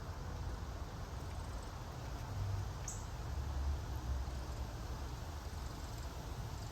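Steady outdoor ambience: a low rumble with a hiss above it, and one brief high chirp about three seconds in.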